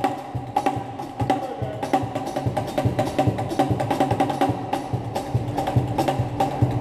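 Old-time string band playing live: fiddle and banjo over a low bass line, with a steady, clicking percussion beat from drums and cymbals.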